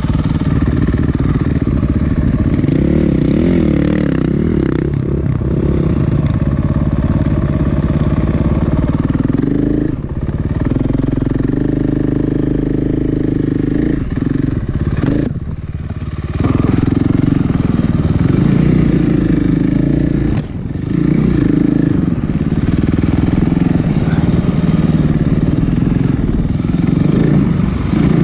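Snowbike (dirt bike on a snow track kit) engine running under throttle, its note rising and falling as the rider works the throttle, with the throttle eased off briefly a few times, most deeply about halfway through.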